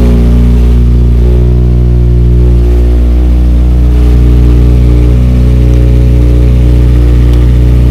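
Motorcycle engine idling steadily, loud and close.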